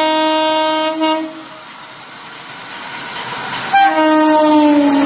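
Indian Railways electric locomotive sounding its horn as the train approaches and passes at speed. One long blast ends about a second in, then the train's rumble builds, and a second blast starts near the end, its pitch dropping as the locomotive goes by.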